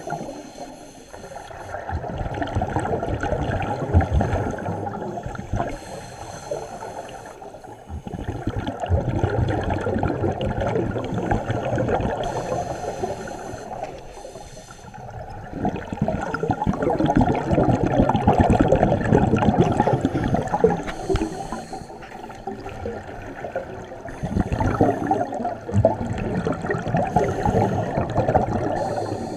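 Scuba regulator breathing heard underwater: long bubbling exhalations of several seconds each, about four of them, with short quieter gaps between breaths.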